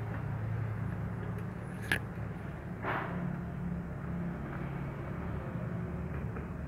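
A kitten's fur rubbing and brushing against the camera's microphone over a steady low hum, with a sharp click about two seconds in and a short rustle about a second later.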